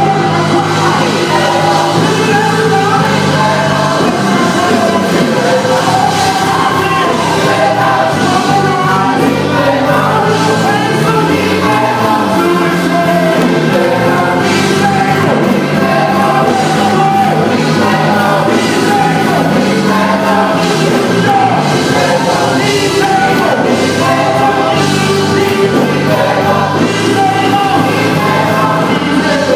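Gospel music: a choir singing with instrumental accompaniment and a steady bass line.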